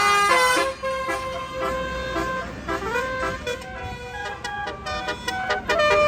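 Bus telolet horn of the Basuri type playing a melody: a run of pitched notes, some held, some stepping quickly up and down, loudest at the start.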